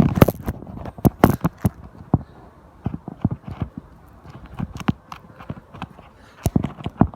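Irregular sharp taps and knocks close to the microphone, several in quick succession about a second in and again near the end.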